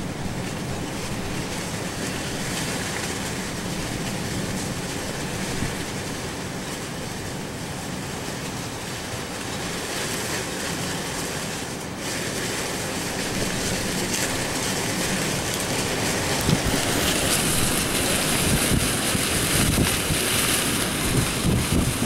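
Strong storm wind blowing steadily, with gusts buffeting the microphone. It grows louder and gustier in the second half.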